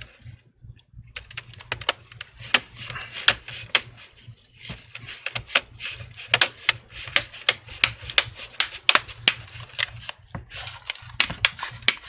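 Plastic clips of an HP 14 laptop's screen bezel snapping into place as the bezel is pressed down around the lid: a rapid, irregular series of sharp clicks, several a second, starting about a second in.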